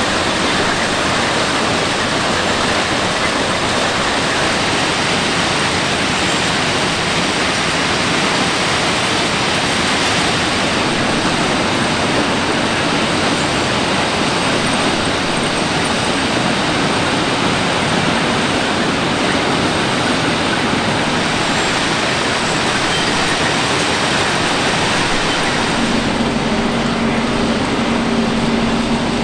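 Plasser & Theurer RMW 1500 ballast cleaning machine at work: a steady, dense rushing and rattling of crushed ballast stone pouring through its excavating chain and conveyors. Near the end a steady machine hum with a low drone joins in.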